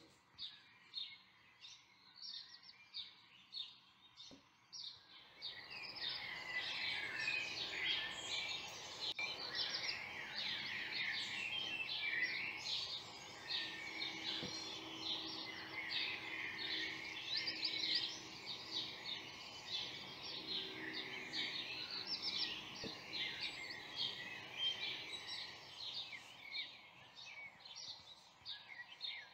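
Woodland birdsong. A few spaced chirps at first, then from about six seconds in a dense chorus of many birds singing over one another.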